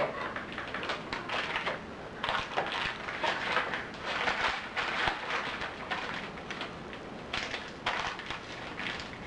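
Plastic packaging crinkling and rustling in irregular bursts as it is handled, likely the bags of modeling clay being opened.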